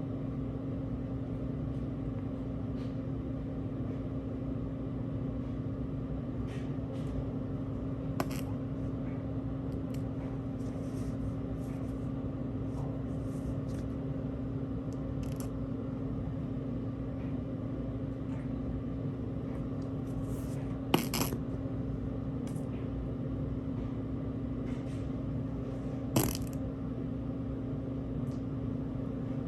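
A steady motor-like hum holding one low pitch, with a few sharp clicks scattered through it; the loudest click comes near the end. No burp or fart is evident.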